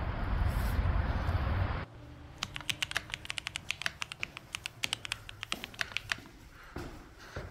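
A loud outdoor rumble that cuts off suddenly about two seconds in, followed in a stairwell by a quick run of sharp ticking clicks, several a second, lasting about four seconds, then a few soft knocks.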